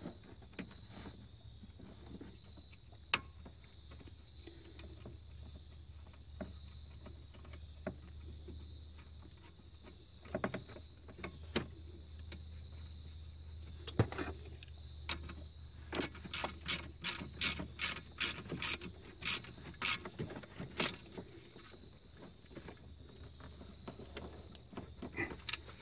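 Faint hand-tool work on an engine-bay fuse block as the main battery cable is fitted: scattered clicks and taps, then a run of about three even clicks a second for some five seconds midway, the sound of a ratchet tightening the cable's terminal nut.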